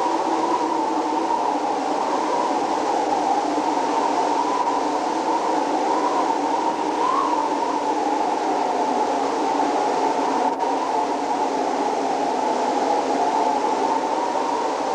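Steady machinery drone on a ship's upper deck near the funnel, a constant rushing hum with a faint wavering tone in it.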